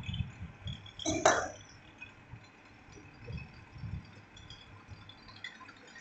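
A short light clink about a second in, among a few soft low bumps from handling.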